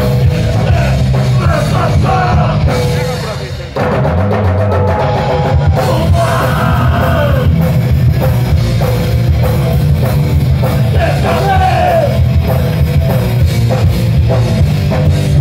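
Heavy rock band playing live through a stage PA: distorted guitars, bass and a drum kit. The music drops away briefly about three and a half seconds in, then the full band comes back in.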